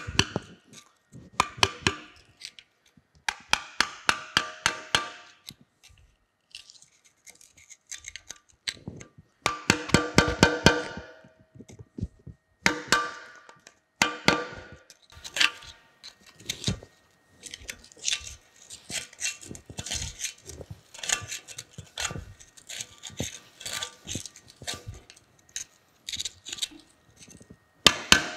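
A hammer tapping a chisel to chip packed rust out of a bearing recess in a cast-iron cane mill frame. Quick runs of sharp metallic taps, several a second, each ringing briefly, come in bursts with short pauses.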